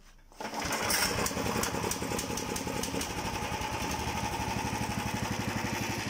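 Zongshen single-cylinder four-stroke engine of a Pomor motorized snow tug starting about half a second in, then running at an even, regular beat. This is the sign that the misfiring has been cleared by carburettor cleaning and adjustment and new NGK spark plugs.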